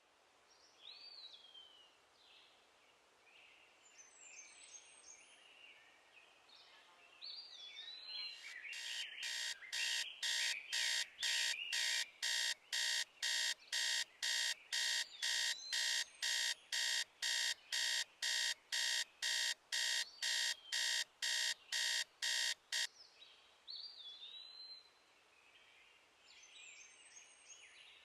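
Birds chirping, then a digital alarm clock beeping in a fast, even rhythm of a little under two beeps a second for about fifteen seconds. The beeping cuts off suddenly, and the birdsong carries on.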